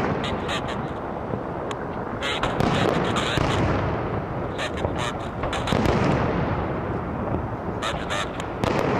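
Aerial fireworks bursting overhead in a continuous rumble of reports. Clusters of sharp crackling come at the start, about two and a half seconds in, and near the end.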